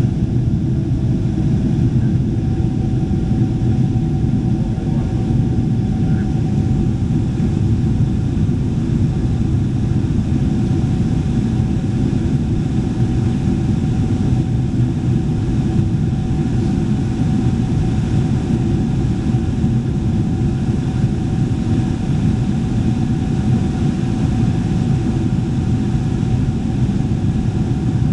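Steady cabin noise inside a Boeing 777-300ER in flight: the rumble and rush of airflow and its GE90-115B engines, with a faint steady whine.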